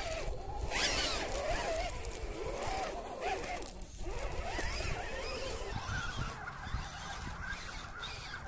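Electric motor and gearbox of an RC scale crawler truck whining as it climbs a muddy clay slope, the pitch rising and falling with the throttle.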